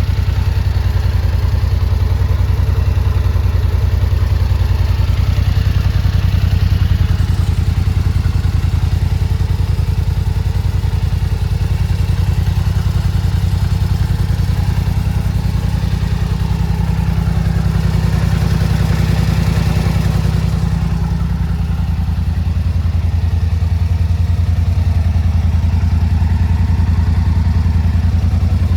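Polaris Sportsman 850's twin-cylinder four-stroke engine running steadily at low speed. About two-thirds of the way through its pitch rises for a few seconds, then settles back.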